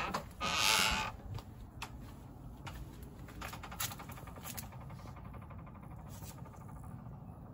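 Wooden gate creaking and scraping as it swings, loudest in the first second, then scattered light clicks and steps on grass.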